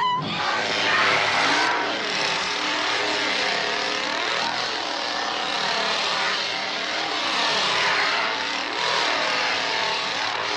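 An engine running steadily, a loud noisy sound that wavers slowly in tone.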